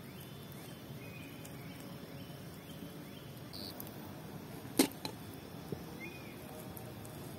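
Quiet outdoor ambience with faint short chirps and a steady low hum, broken by one sharp knock about five seconds in.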